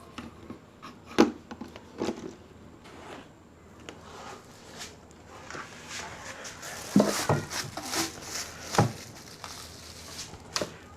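Handling noise from speaker parts being fitted together: scattered clicks and knocks with some rustling between them.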